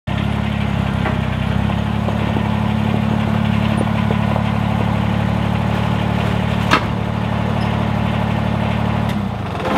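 Small red compact tractor's engine running steadily at a low, even speed as it creeps forward, with one sharp click about two-thirds of the way through. The engine cuts off about nine seconds in.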